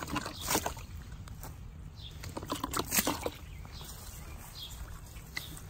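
Footsteps across yard mulch and ground cover, a few irregular soft crunches and rustles, over a steady low rumble.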